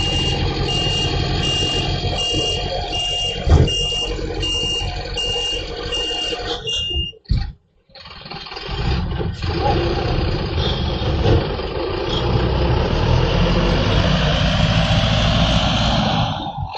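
Garbage truck's reversing beeper sounding steadily, about one and a half beeps a second, over the running diesel engine, with a sharp knock about three and a half seconds in. The beeping stops about seven seconds in; after a brief break the truck's engine runs on, with a hiss building near the end.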